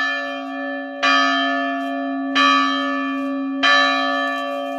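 Church bell rung by hand, struck three times about every 1.3 seconds, each stroke ringing on over the last with a long steady hum beneath the brighter overtones.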